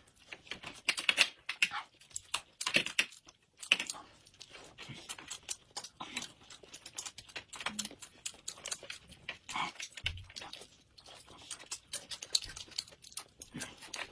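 Close-miked eating sounds of two people chewing steamed dumplings and steamed cornmeal buns, with irregular mouth clicks and smacks throughout.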